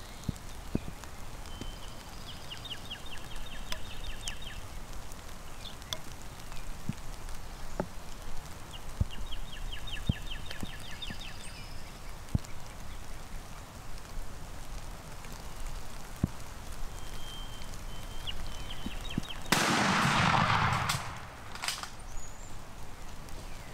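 Rain pattering, with a small bird trilling in quick, evenly spaced notes twice. Late on, a sudden loud burst of noise lasts about a second and a half.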